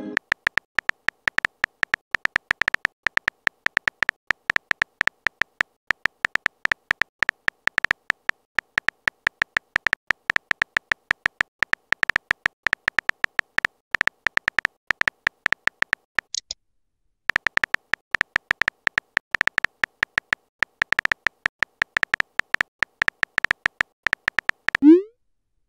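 Phone keyboard typing sound effect: rapid, irregular high clicks, one per letter, with a short pause about two-thirds of the way through. Near the end, a short rising pop as the message is sent.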